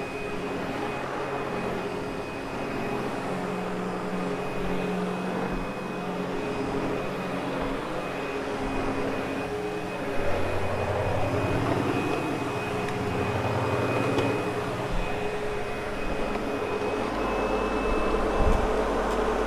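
Sebo X8 upright vacuum cleaner running on carpet, a steady motor drone with a thin high whine, its low hum growing a little louder about halfway through.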